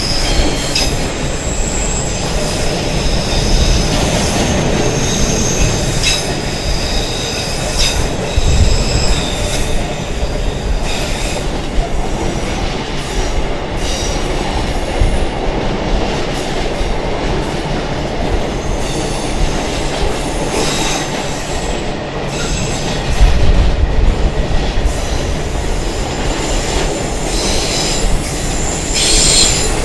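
Freight train's container wagons rolling past at speed: a continuous heavy rumble, clacks as the wheels cross rail joints, and high wheel squeal that comes and goes.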